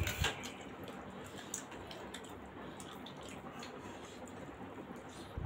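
Wet chewing and squishy mouth sounds of people eating steamed momo dumplings, with a few small clicks. There is a louder burst at the very start.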